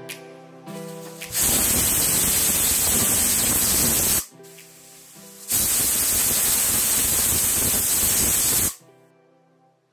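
Prestige Deluxe aluminium pressure cooker whistling twice. Each time the weight valve lifts and lets out a loud hiss of steam for about three seconds, with a short gap between the two. The whistles show the cooker is at full pressure, and two whistles on high heat is the count the cooking goes by.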